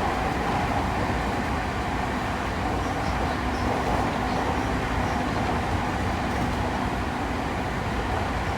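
Interior running noise of a JR East E217-series electric commuter train under way: a steady rumble of wheels on rail and car body. A faint steady whine runs under it and drops away about seven seconds in.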